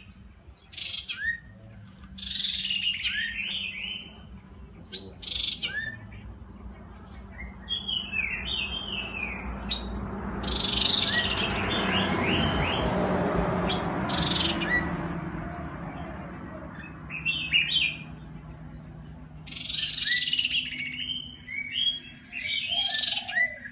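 Common iora of the black-headed form singing in a bamboo cage: clusters of quick, short, falling whistled chirps, several bursts in a row. Midway a broad rushing noise swells up and fades away over about six seconds.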